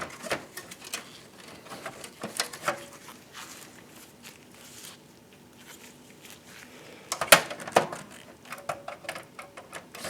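Hard drive in its plastic caddy being handled and fitted back into a desktop computer case's drive bay: scattered plastic and metal clicks and knocks, with a quiet stretch in the middle and the two loudest clicks about seven seconds in.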